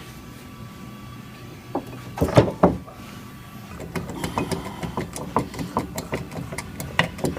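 Frame-straightening work on a steel frame rail. A steady machine hum runs throughout, a few loud metallic knocks come about two seconds in, and a fast run of sharp clicks and ticks starts about halfway.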